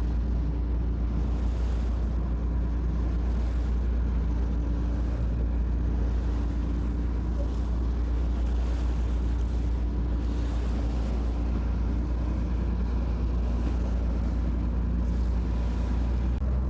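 Charter boat's engine running steadily under way, a constant low drone.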